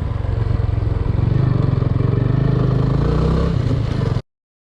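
Engine of a moving road vehicle running steadily with a low pulsing rumble, cutting off abruptly a little over four seconds in.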